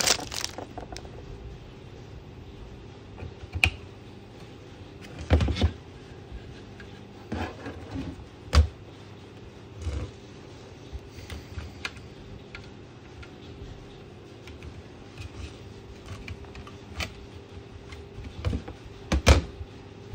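Handling noise from fitting a hard disk and its SATA cables into a metal CCTV DVR case: scattered clicks and knocks, the loudest about five seconds in and near the end, over a steady low hum.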